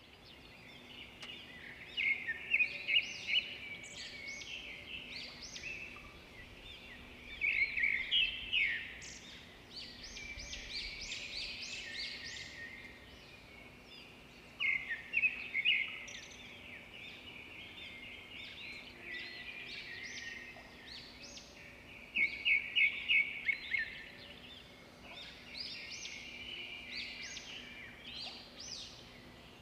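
Songbirds singing in bursts of quick chirps and trills every few seconds, over a faint steady background noise.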